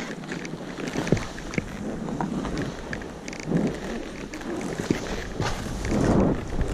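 Skis swishing and scraping over snow through turns, with two stronger swishes about three and a half and six seconds in, scattered clicks and knocks, and wind rumbling on the microphone.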